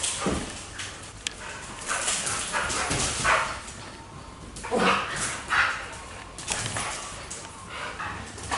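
Young dogs at play barking and yipping in short, separate bursts, about half a dozen times.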